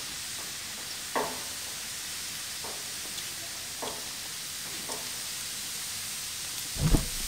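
Goat meat, shrimp and vegetable kebabs sizzling on a hot gas grill as skewers are laid on the grate, with a few light clicks about once a second as they are set down. A louder low thump near the end.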